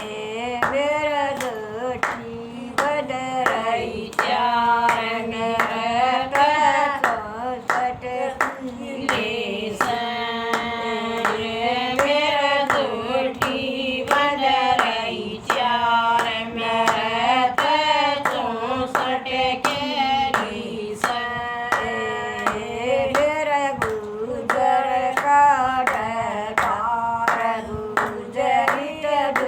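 A Haryanvi bhajan sung by a woman, with steady hand clapping keeping time at about two claps a second.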